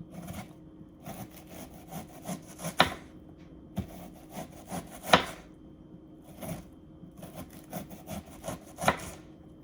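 Kitchen knife finely chopping onion on a cutting board: an uneven run of knife strokes, with louder knocks about three seconds in, about five seconds in and near the end.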